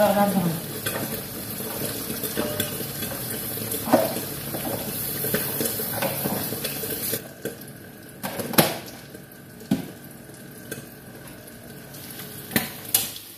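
Kitchen work at a stove: a steady hiss that drops away about seven seconds in, with scattered sharp clinks and knocks of pots, pans and utensils. A metal pan lid is lifted and clatters near the end.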